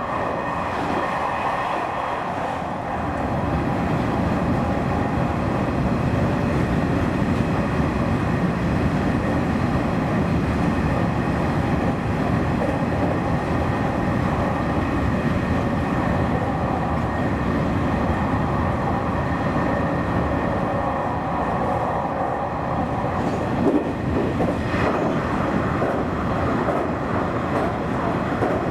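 Nishitetsu electric express train running at speed, heard from inside the front car behind the driver's cab: a steady rumble of wheels on rails with a steady whine over it. A couple of sharper knocks come about three-quarters of the way through.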